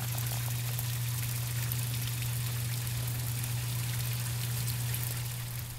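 Water trickling and splashing steadily down a backyard pond's rock stream and waterfall, with a steady low hum underneath.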